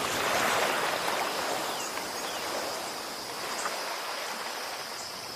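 Sea waves washing in, a steady rushing hiss that slowly gets quieter.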